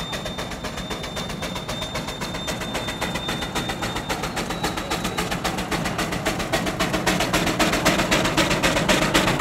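Fast, even clatter of sharp beats, about five a second, growing steadily louder.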